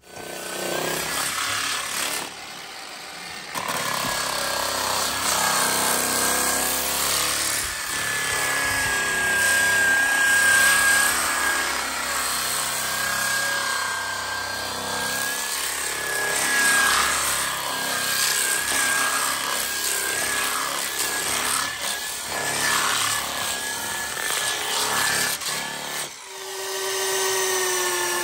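Cordless DeWalt power saw running steadily as it cuts into a peeled log. About two seconds before the end it stops and a cordless drill starts, its whine sinking slightly as the bit bores into a log post.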